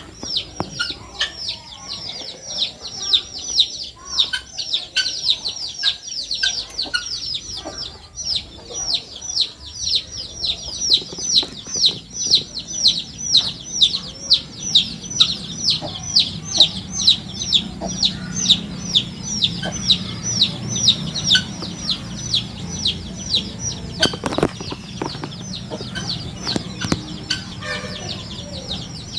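Guinea fowl keets peeping without a break, a fast string of high, downward-sliding peeps about three a second, with a few soft knocks and scuffles underneath.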